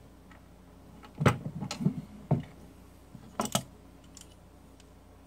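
Sharp metallic clicks and taps of cartridge reloading: a freshly seated 224 Valkyrie round is worked out of the reloading press and closed in calipers to check its overall length. Four clicks come a little over a second in, then a quick pair about three and a half seconds in.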